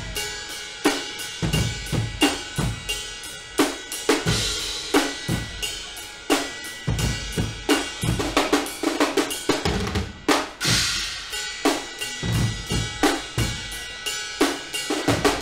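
Guggenmusik band's drum section playing a loud, driving beat on snare drums, bass drums and a drum kit, with cymbal crashes near the start and again about ten seconds in.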